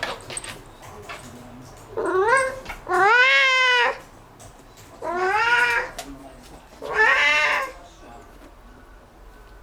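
Domestic cat meowing four times in quick succession, noisy drawn-out calls of about a second each that rise and then fall in pitch, excited by a bug it has spotted.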